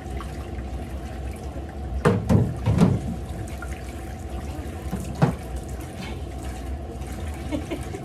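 Kitchen tap running and splashing into a stainless steel sink over a large bowl being washed, with a few loud knocks about two to three seconds in and another around five seconds.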